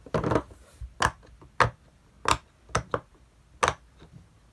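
Silicone pop-it fidget toy having its bubbles pushed through on its loud side, giving a series of separate sharp pops, about one every half second, irregularly spaced.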